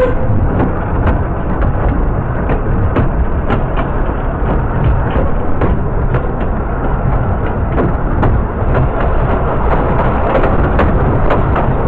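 Narrow-gauge railway carriage running along the track: a steady rumble and rattle, with repeated sharp clicks of the wheels passing over rail joints.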